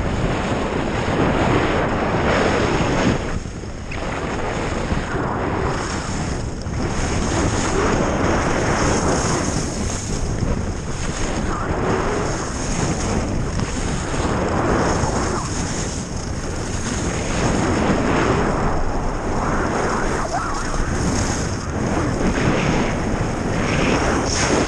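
Wind rushing over the microphone of a skier going downhill at speed, mixed with skis scraping and carving over packed snow. The noise swells and eases every second or two with the turns.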